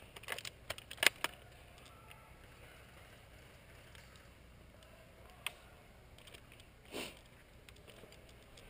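A quick irregular run of sharp clicks and snaps in the first second and a half, the loudest about a second in, then a single click about five and a half seconds in and a short rustle around seven seconds.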